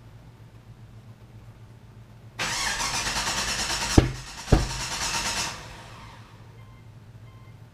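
A cammed LQ9 V8 in a 2006 Pontiac GTO being cranked on the starter for about three seconds, with two heavy thumps from the exhaust partway through, then cutting off without settling into an idle. This is the car's failure to start.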